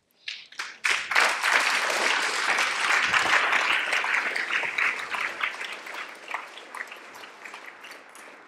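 Audience applause that swells about a second in, holds, then dies away over the last few seconds.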